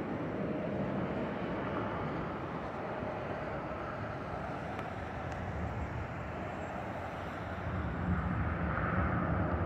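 Airliner flying over, its engines a steady rumble that grows louder near the end.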